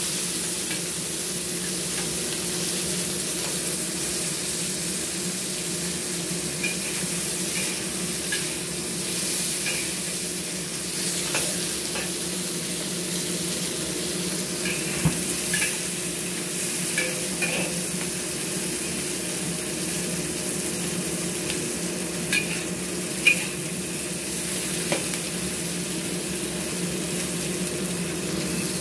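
Prawns stir-frying in hot oil in a wok: a steady sizzle, with a spatula scraping and knocking against the pan now and then, over a low steady hum.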